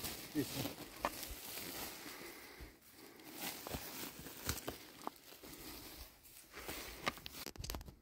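Irregular rustling and crunching with scattered sharp clicks, as of dry material being handled or trodden.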